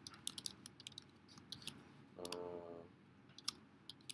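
Faint computer keyboard typing: scattered single key clicks at an uneven pace. About two seconds in there is a short hummed voice sound.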